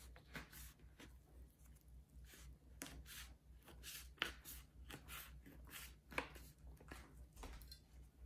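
Chef's knife cutting through rolled phyllo-dough baklava in a metal baking tray: a faint, irregular series of short, crisp cuts, about two a second.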